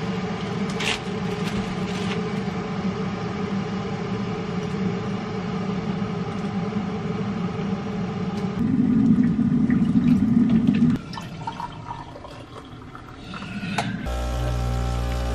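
A steady low mechanical hum and rumble that gets louder for a couple of seconds past the middle, then drops to a quieter stretch with small clicks and handling sounds; music starts near the end.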